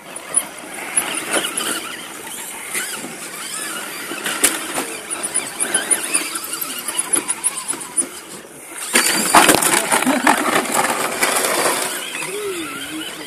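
Electric drivetrain of an RC rock crawler truck running as it crawls over dirt and rock, with many small clicks and crackles of tyres and loose stones; it is loudest from about nine to twelve seconds in.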